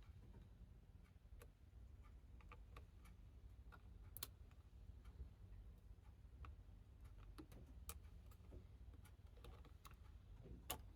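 Faint, irregular small clicks and taps from handling the laptop's internal parts, over a low steady room rumble.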